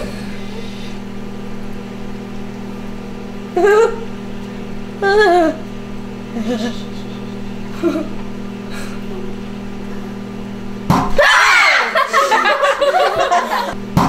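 LG microwave oven running with a steady electrical hum while an egg heats inside, with a few brief voices over it. About eleven seconds in, the hum stops at a sudden sharp sound and excited children's voices and laughter break out.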